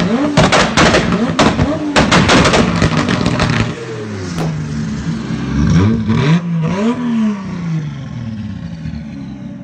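Tuned BMW 3 Series race car's engine revved repeatedly, with rapid sharp pops and cracks from the exhaust through the first few seconds. After that come a few separate rev blips rising and falling in pitch, and the engine drops back lower near the end.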